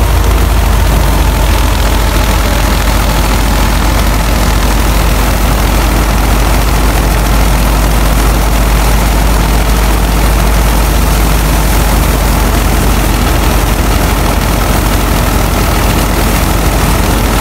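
Tractor-driven wheat thresher running steadily under load as sheaves are fed into its drum: a loud, constant mechanical drone with a strong low hum from the tractor engine and the belt-driven drum.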